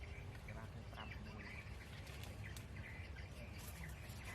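Faint outdoor ambience: a steady low rumble with a few faint chirps and small clicks.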